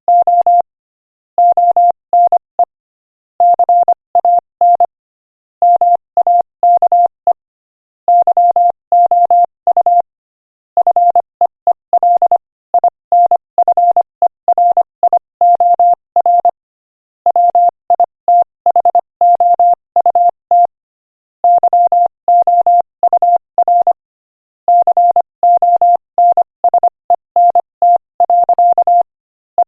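Morse code at 25 words per minute: a single steady beep tone keyed on and off in rapid dots and dashes, with brief silent gaps between words.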